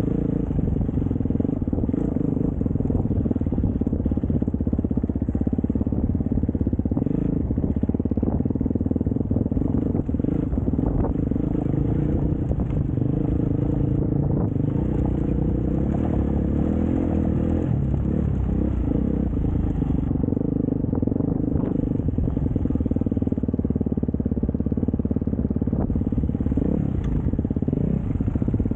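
Dirt bike engine running steadily at low speed, with scattered knocks and rattles as the bike rolls over railway sleepers and ballast.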